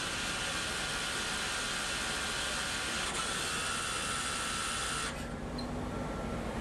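Citizen L20X Swiss-type CNC lathe cutting a brass part: a steady hiss with a thin high whine. About five seconds in, the hiss drops away suddenly, leaving a lower hum.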